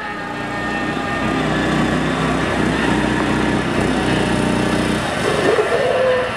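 Small single-cylinder Briggs & Stratton engine of a Baja SAE off-road car running under throttle as the car drives up a braking lane. About five seconds in, the engine note falls away and a short wavering squeal follows as the car brakes hard.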